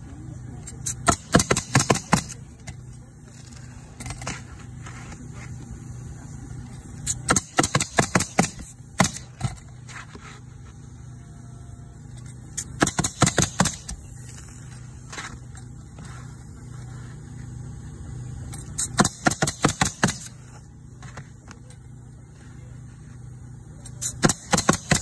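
Pneumatic roofing nailer firing nails into asphalt shingles in five quick bursts of several shots each, a burst every five to six seconds.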